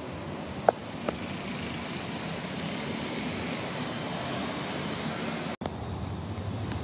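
Steady rumble of city road traffic, with a metro train pulling away along the elevated track and fading into it. Two short sharp ticks about a second in, and a brief dropout near the end.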